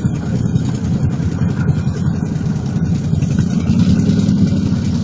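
ATV engine running at idle, a steady low rumble that grows a little louder about three and a half seconds in.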